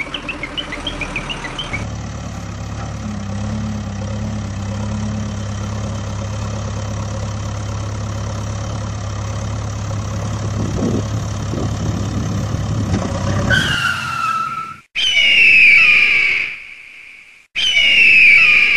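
Engine idling sound effect, a steady low hum, which near the end gives way to three loud squealing whines that each fall in pitch.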